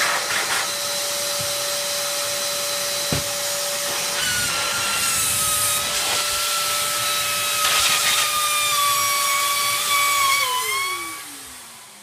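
Cheap ash vacuum cleaner's motor running with a steady high whine and a funny noise; a second, higher whistle joins about four seconds in. Near the end it is switched off and winds down with a falling pitch.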